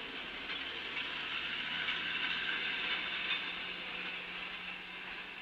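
Narrow-gauge passenger train pulling out behind a steam locomotive: the coaches roll past on the rails with a steady wheel-and-rail noise and a few faint clicks.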